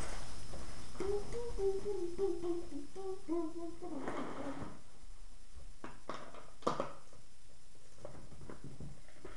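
A person humming a short stepping tune for about three seconds, followed a few seconds later by several sharp clicks and knocks.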